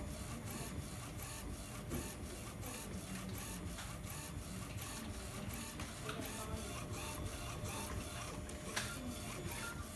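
UV inkjet printer printing: the print-head carriage shuttles back and forth steadily, with a regular repeat about twice a second.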